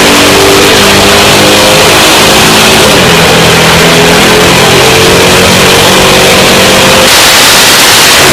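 Mercedes E55 AMG's supercharged 5.4-litre V8 revving hard, its pitch rising and falling several times, very loud throughout, with a stronger hiss near the end.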